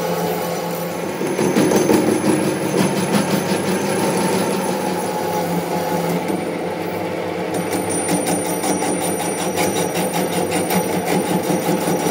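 Factory machinery running with a steady mechanical din and a fast, even clatter of several strokes a second, plainer in the second half.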